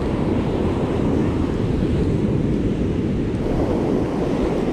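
Ocean surf breaking and washing up a sandy beach, a steady rush of water with wind rumbling on the microphone.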